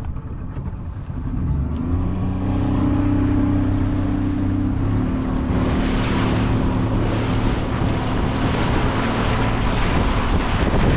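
Boat engine picking up speed about a second and a half in, then running steadily, with the rush of water and wind getting louder from about halfway.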